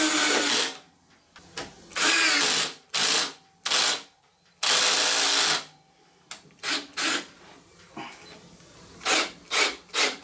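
Cordless drill-driver driving screws back into the sheet-metal case of a plasma cutter, run in a string of short trigger bursts. Most runs last under a second and the longest just over a second; a quick run of short pulses comes near the end.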